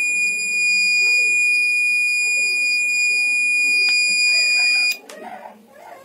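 Small electronic buzzer of a homemade fire-alarm circuit sounding one steady, high-pitched tone, set off by a candle flame heating the bulb sensor. It cuts off abruptly about five seconds in.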